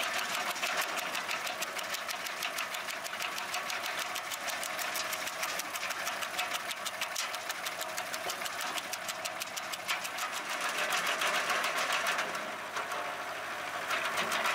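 Wood chipper running with a rapid, even mechanical clatter, a little louder for a couple of seconds past the middle.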